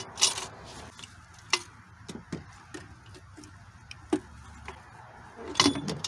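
Light metallic clicks and clinks, scattered and irregular, as a bolt is set by hand into the upper intake manifold of a V6 engine that is not running. There is a slightly louder cluster of clinks near the end.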